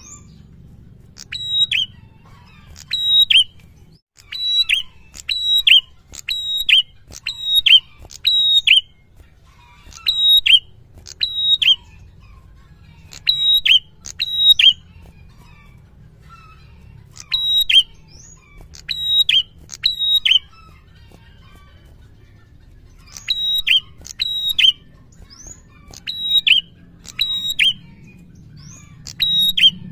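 A caged tailorbird (prenjak) singing: loud, sharp, high whistled notes that drop quickly in pitch, given in quick pairs and triplets every second or two, with a couple of brief pauses.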